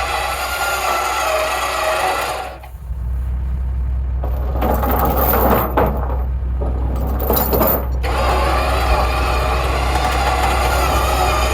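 An engine runs steadily, and between about two and a half and eight seconds in the sound turns to metallic clanking and rattling.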